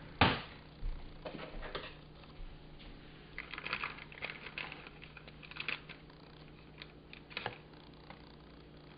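A sharp knock just after the start, then scattered light clicks and short bursts of crinkling as a clear plastic bag over a tall container is handled. A faint low hum runs underneath.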